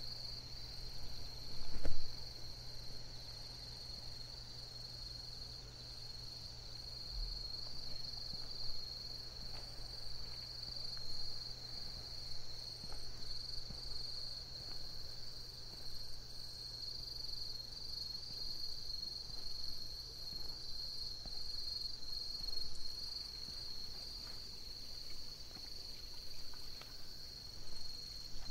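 Night insects chirring in a steady, high-pitched chorus with a slight pulse, over a low steady hum. A single low thump sounds about two seconds in.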